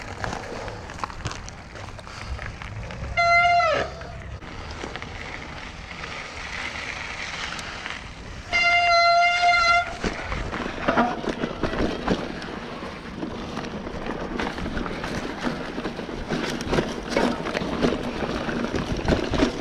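Mountain bike rolling down a rough trail, with wind and rattling over the bumps, and two loud high squeals from the bike's disc brakes, one about three seconds in that drops in pitch as it lets go and a steadier one of about a second near the middle.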